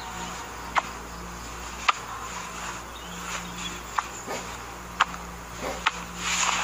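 Soundtrack ambience: a steady low hum and faint hiss, broken by about six sharp clicks at irregular intervals, with a swell of noise in the last half second.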